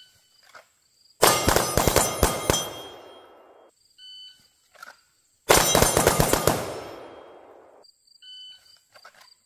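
A shot-timer beep, then about a second later three shooters draw and fire pistols in a rapid volley of overlapping shots, with steel targets ringing. The cycle repeats: a second beep about four seconds in, a second volley about a second and a half later, and a third beep near the end.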